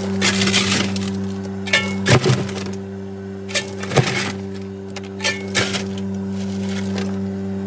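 Cube ice machine running with a steady hum while ice cubes drop and clatter in irregular sharp cracks and clinks, about ten in all.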